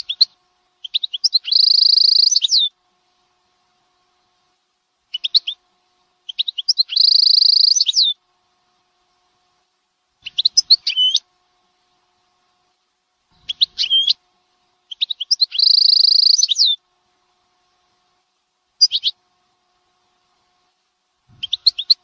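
Small songbird singing in separate phrases: quick chirps and trills, three times with a long, high, buzzy trill of about two seconds, and short pauses between phrases.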